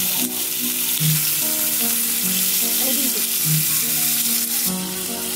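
Thin-sliced pork belly (daepae samgyeopsal) sizzling steadily as it fries in a hot frying pan.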